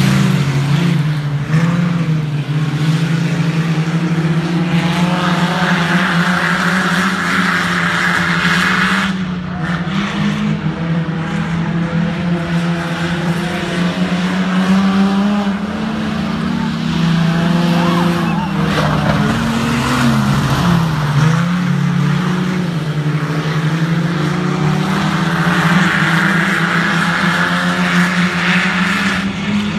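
A field of speedway sedans racing on a dirt oval, several engines running hard with a wavering pitch as the drivers work the throttle through the turns. A harsher, louder spell comes as the cars sweep past, about five seconds in and again near the end.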